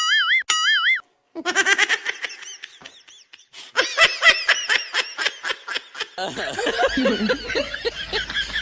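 An edited-in warbling cartoon sound effect ends about a second in. A laughing sound effect follows: rapid, high-pitched pulses for about five seconds. Around six seconds in it cuts to background noise and voices.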